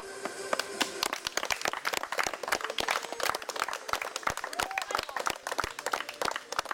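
A small group of people clapping their hands, the claps sharp, separate and uneven, several a second, with voices underneath.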